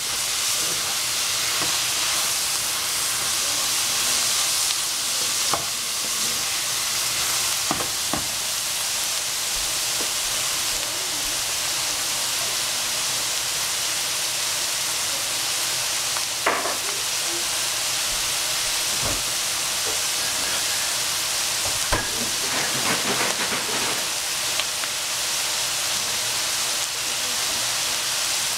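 Cabbage, pork and peppers sizzling in a frying pan with a steady hiss, with a wooden spatula stirring at first and a few sharp clicks and knocks scattered through.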